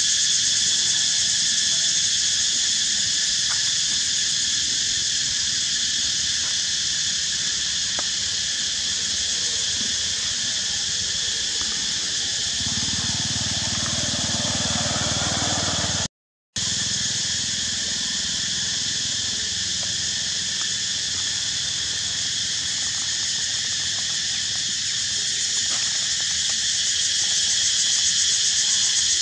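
Steady, high-pitched drone of an insect chorus. A low rumble swells in for a few seconds around the middle, just before the sound cuts out for a split second.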